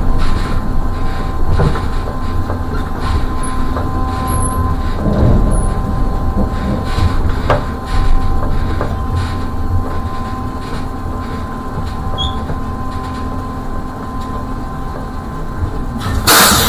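Electric trolleybus moving slowly, heard from the cab: a low rumble with a steady whine of thin tones from the electric drive and scattered knocks and rattles. A loud burst of hissing noise comes about 16 seconds in.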